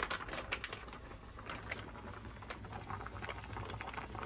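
Plastic meal-kit pouch crinkling and crackling as it is handled, opened and squeezed, in irregular small clicks that are densest in the first second.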